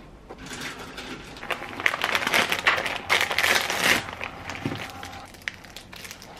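Thin plastic packaging of rice cakes crinkling and rustling as hands open the bag and handle the wrapped pieces, loudest in the middle and dying away near the end.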